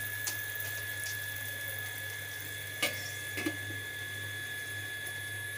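Eggs and onions frying in oil in a steel kadai, a steady sizzling hiss, with a sharp metal clink about three seconds in as the stainless steel lid is set on the pan.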